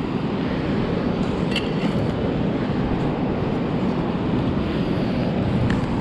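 Steady wind noise rushing over the microphone, with two faint clicks about a second and a half in and near the end.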